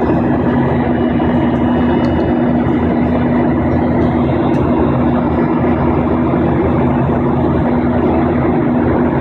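Airliner engines and airflow heard inside the passenger cabin in flight: a steady drone with a constant low hum.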